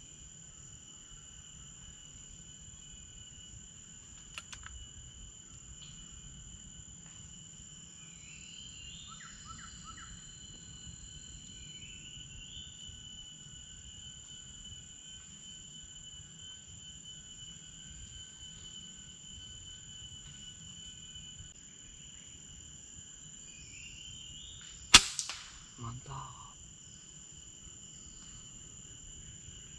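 A single sharp crack of a PCP air rifle shot near the end, followed a second later by a couple of duller knocks, over a steady high insect drone and a few short bird calls.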